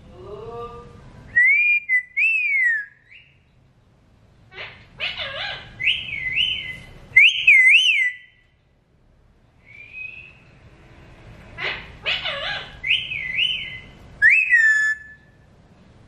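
Alexandrine parakeet whistling: several bursts of clear, gliding whistle phrases, each a few quick up-and-down warbles, with shorter rough rising calls just before them.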